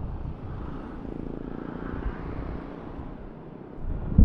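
Yamaha NMAX scooter, fitted with a Pitsbike racing ECU, running under acceleration on the road, its engine mixed with road and wind noise; a loud low wind rumble rises near the end.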